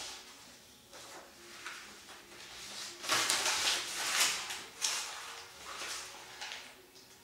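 A sheet of paper being crumpled between the hands: crackling rustles, faint at first, then a dense burst of crinkling from about three seconds in that dies away after about two and a half seconds.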